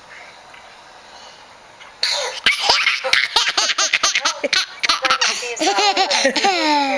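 A young child laughing, a long run of quick giggles that starts about two seconds in.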